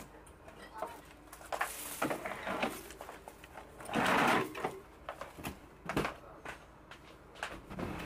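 Kitchen handling sounds: scattered clicks and knocks of dishes and cupboard doors or drawers, with a brief rush of noise about four seconds in.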